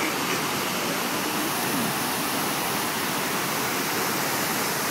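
Steady rush of water pouring down the walls of the 9/11 Memorial's reflecting-pool waterfalls.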